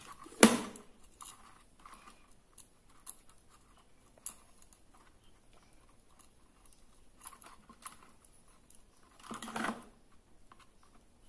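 Small plastic clicks and handling noises as hands work a torch's rocker switch and its wires inside the plastic housing. A sharp knock comes about half a second in, and a short scuff comes near the end.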